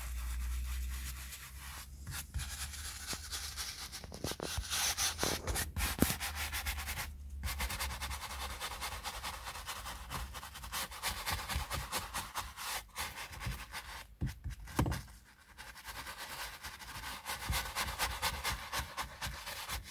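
A brush scrubbing foamy leather cleaner into a car's leather seat: quick back-and-forth rubbing strokes, with a few brief pauses.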